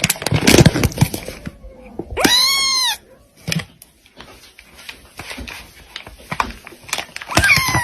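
A cat meowing: one loud, drawn-out meow that rises and falls in pitch about two seconds in, and a shorter falling meow near the end. In between, scattered clicks and knocks.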